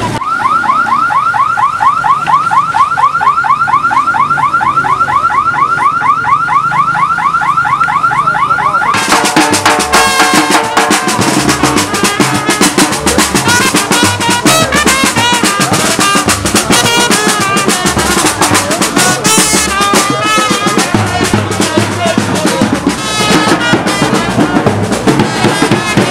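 A car alarm siren warbling fast, sweeping up and down several times a second, cuts off about nine seconds in. Drumming with music takes over for the rest.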